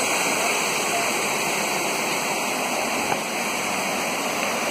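Steady rush of water falling over a small cascade beside a stone wall, with one brief knock about three seconds in.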